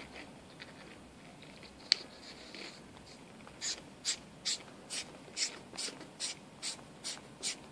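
Eye lens of a reticle eyepiece being screwed by hand onto its threaded barrel over a spring placed inside to take up thread slop. There is a sharp click about two seconds in, then about ten short, quiet, scratchy strokes, a little over two a second, one for each twist of the fingers.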